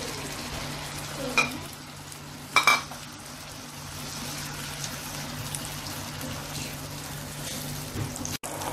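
Tomato purée sizzling in hot oil in a kadhai as a silicone spatula stirs it, with two short, sharper spatula sounds against the pan about one and a half and two and a half seconds in. The purée is cooking down on high flame to drive off its water.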